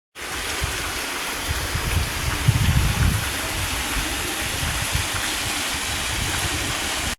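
Small waterfall splashing into a pool: a steady rush of falling water, with low rumbling thumps, strongest about two to three seconds in.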